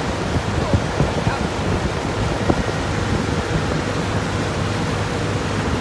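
Motor launch under way: its engine hums steadily beneath the rush of water along the hull and wind on the microphone, with a few short slaps of water in the first couple of seconds.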